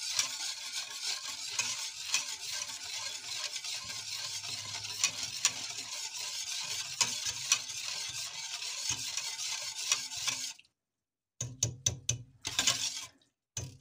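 Wire whisk stirring milk and sugar in a stainless steel pot: a steady swishing with light clicks of the wires against the pot. It stops suddenly about ten seconds in, followed by a few short knocks.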